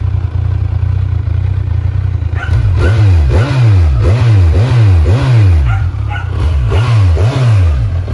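Kawasaki Z1000R's 1043 cc inline-four engine, warm, idling through its stock twin-outlet exhaust. About two and a half seconds in it is revved in a quick series of about nine throttle blips, each rising and falling in pitch within about half a second.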